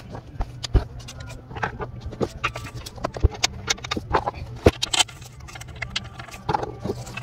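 Irregular clicks and knocks of a hand tool and metal parts being handled in a car's engine bay, over a steady low hum.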